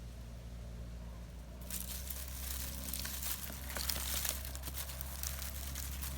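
Dense crackling and rustling starting a little under two seconds in, made of many small sharp clicks over a steady low hum.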